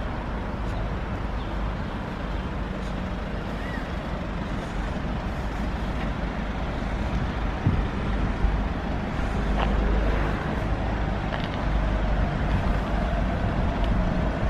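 Mercedes-Benz Sprinter 313 CDI van's four-cylinder diesel engine running at low revs as the van edges into a parking space: a steady low rumble.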